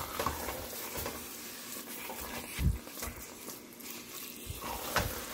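Wooden spoon stirring a thick minced-chicken and onion stew in a stainless steel pot, scraping and squelching through the mixture over a soft sizzle, stirred fast to keep it from sticking. Two dull thumps, about three seconds in and near the end.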